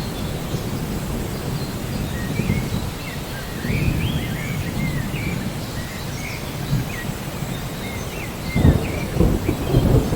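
Steady rain with low rolling thunder that swells near the end, and birds chirping repeatedly through it.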